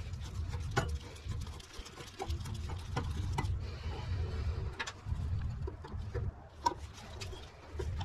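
Hand screwdriver turning out the mounting screws of a microwave magnetron: scattered small metal clicks and ticks over a low rumble.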